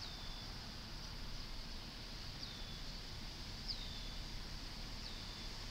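A bird calling four times, each call a short high whistle that falls in pitch, over a steady low rumble and hiss.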